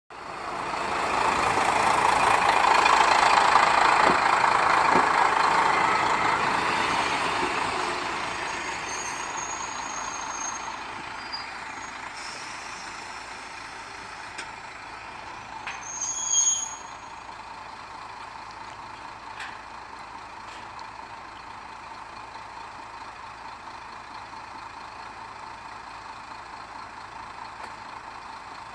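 Diesel railcar running past, its rushing noise loudest in the first few seconds and then slowly fading away, with a brief high squeal about sixteen seconds in.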